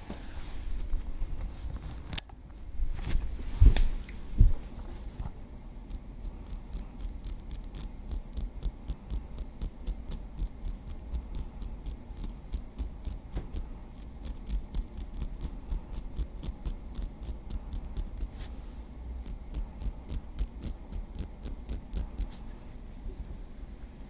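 Light tapping with a small wooden stick: a few louder knocks about three to four seconds in, then a steady run of quick, light taps, several a second.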